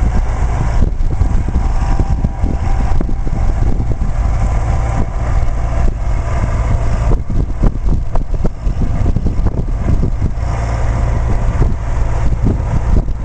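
Engine of a Marflex XN 1600 self-propelled field sprayer running steadily, loud and close.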